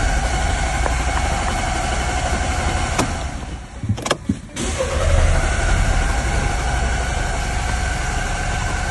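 Car's starter motor cranking the engine, which turns over but never fires. A long crank stops about four seconds in, followed by a short pause with a couple of clicks, then a second crank. It is a crank-no-start, which the owner puts down to a blocked ignition signal from a sludge-fouled camshaft position sensor.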